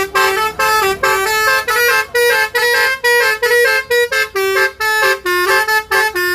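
Telolet horn, a multi-tone musical car horn, playing a fast run of short notes that step up and down in pitch, with brief breaks between the phrases.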